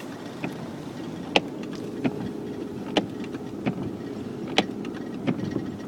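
A steady low hum like a running engine, with sharp clicks about every second and a half.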